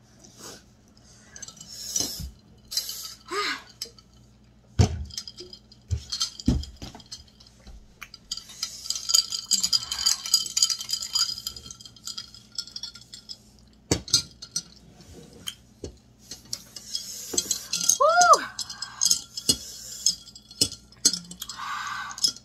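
Table sounds while eating: scattered sharp clinks and knocks of a glass and dishware. There is a nose being blown into a paper tissue near the start and sipping through a straw midway.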